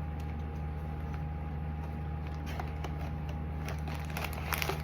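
Blind-box packaging handled and opened by hand: scattered light clicks and crinkles of card and wrapping, growing busier near the end, over a steady low hum.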